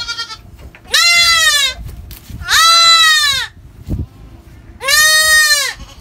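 Young goat kid bleating loudly three times, each call about a second long, rising and then falling in pitch, the distress calls of a kid restrained by its hind legs. A short low knock comes between the second and third bleats.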